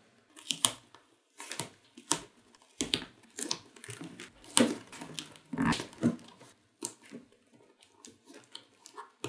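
Short strips of black tape torn and pressed down around a magnifying glass onto cardboard: a run of irregular short ripping and crackling sounds.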